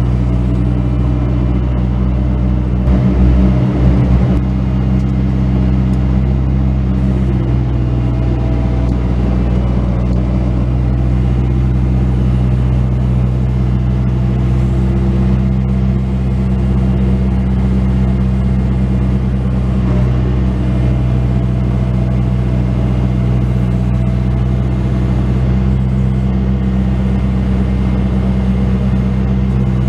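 Bobcat S185 skid steer loader's diesel engine running steadily under work, with a few low thumps about three seconds in.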